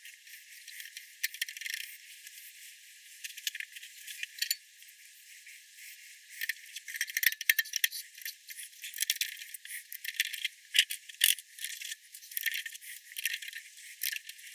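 Small metal clicks and rattles as a planer blade and its clamp parts are handled and fitted onto the cutter block of a Triton thickness planer. The clicks are irregular, thicker in the second half, and sound thin, with no low end.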